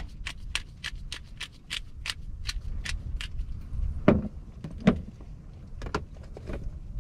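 Pepper grinder being twisted: a quick run of dry clicks, about five a second, for some three seconds. Then a few knocks and rattles of spice containers being picked through in a plastic bin, over a low rumble of wind on the microphone.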